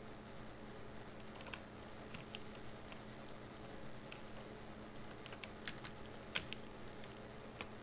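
Computer keyboard keys and mouse buttons clicking at irregular intervals as 3D modelling software is operated. A faint steady hum runs underneath.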